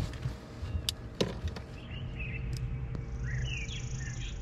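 A sharp thump at the start and a few lighter knocks about a second in, then small birds chirping over a low steady rumble.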